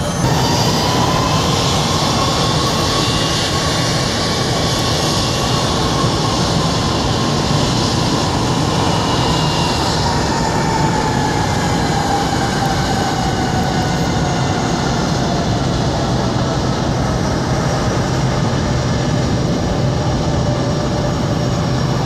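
Boeing C-17 Globemaster III's four Pratt & Whitney F117 turbofan engines running as the aircraft taxis. It is a loud, steady roar with a jet whine that slowly falls in pitch over the second half.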